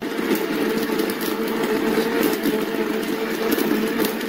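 Electric countertop blender motor running at a steady speed, loud and even, as it liquefies cherries with sugar and water into juice.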